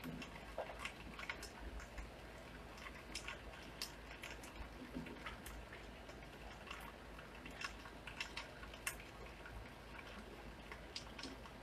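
Light rain falling: a faint steady hiss with irregular sharp drips tapping close by, about two a second.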